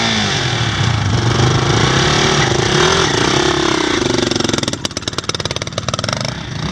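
KTM 450 EXC single-cylinder four-stroke enduro engine running and revving as the bike pulls away. About five seconds in it drops to low revs, its separate firing pulses audible, as it rides off.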